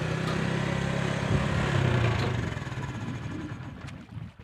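A small engine running steadily with a low hum, which fades away over the last two seconds.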